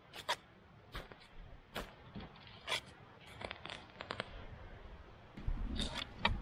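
Short D-handled spade cutting and scraping into dark soil, a sharp scrape of the blade about once a second. Near the end there is a low rumble with a few more scrapes.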